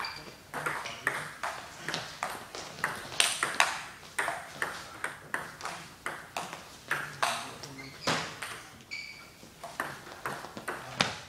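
Table tennis ball clicking off the bats and the table through a fast rally, two to three sharp clicks a second, each ringing briefly in the echoing sports hall.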